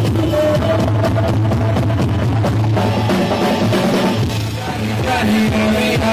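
Live rock band playing through a PA: drum kit beating steadily under electric bass and electric guitar.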